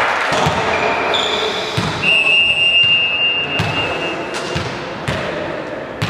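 A volleyball thudding several times on a wooden gym floor, each thud ringing in the large hall. Short high squeaks come around the first second, and a steady high tone holds for about two seconds from the middle.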